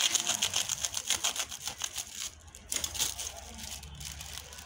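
Shiny green gift paper crinkling as it is rolled and folded by hand: a rapid crackle that stops about two and a half seconds in, with one short burst after that.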